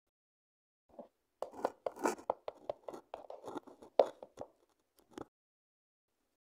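Handling noise: a quick, irregular run of small clicks, knocks and rustles lasting about four seconds, with the sharpest knock about four seconds in.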